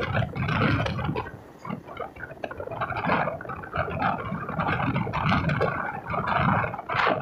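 Express passenger train running at speed, heard from an open coach doorway: a dense rush of wheel and wind noise with irregular knocks and rattles from the running gear, its level surging up and down.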